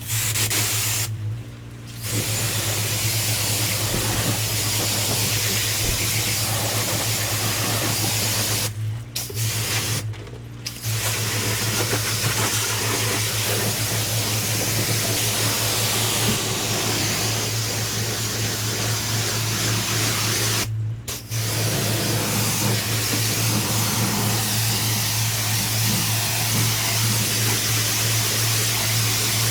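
Pressure washer jet spraying onto block paving, a loud steady hiss over a low machine hum. The spray cuts out briefly four times.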